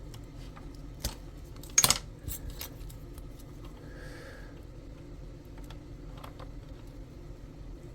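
Small metal parts and tools clinking on a workbench: one click about a second in, then a sharp burst of three clinks near two seconds and a few lighter clicks after, over a steady low hum.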